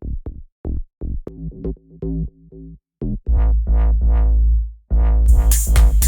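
Electronic beat built on a chopped, stuttering belch sample, in short pitched stabs. A heavy bass comes in about three seconds in, and full drum-machine drums with hi-hats join about five seconds in.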